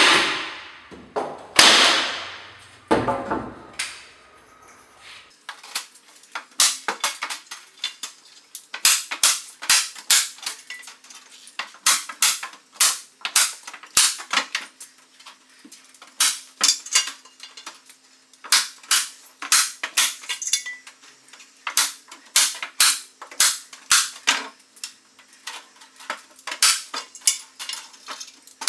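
Metal drywall corner bead being fixed to an outside corner. A few loud ringing metal clanks come in the first seconds, then many sharp metallic taps and clicks follow, a few a second and irregular.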